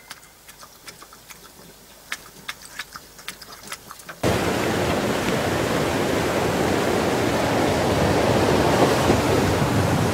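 Water rushing over a small rocky weir or waterfall: a loud, steady roar of white water that starts suddenly about four seconds in. Before it there is only a quiet stretch with a few faint clicks.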